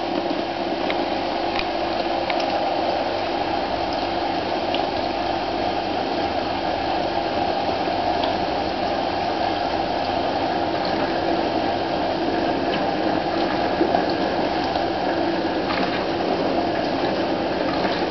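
Neff dishwasher running its wash at the start of the Normal 65 program: a steady rush of water inside the tub with the hum of the pump and a few faint ticks.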